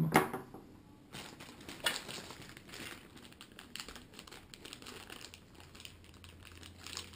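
Clear plastic packaging bag crinkling and rustling as a small camera accessory inside it is handled and unwrapped. A single knock near the start, as an item is set down on the wooden table, is the loudest sound.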